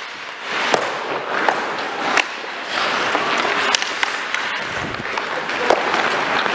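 Ice hockey play: skate blades scraping on the ice under a steady hiss, with about half a dozen sharp clacks of sticks and puck striking.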